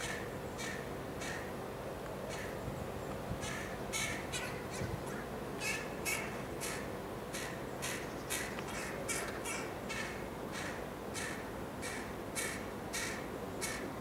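Juvenile carrion crow begging with short, harsh, repeated caws, sparse at first and then coming about twice a second from about four seconds in.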